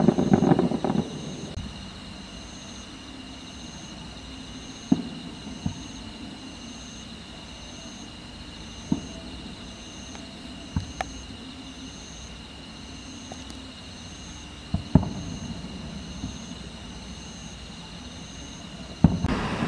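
Distant aerial fireworks shells bursting: a loud rumbling boom at the start and another near the end, with a handful of sharp single bangs in between. Under them, insects chirp steadily, one with a regular pulse about once a second.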